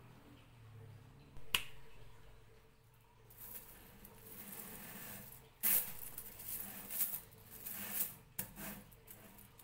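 Riveted chainmail being handled and bunched by hand: its small metal rings jingle and clink against each other in uneven bursts. A single sharp click comes about a second and a half in.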